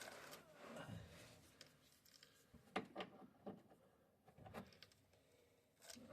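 Near silence broken by a few faint, short knocks and clicks, a couple of them close together about three seconds in and another pair near the end.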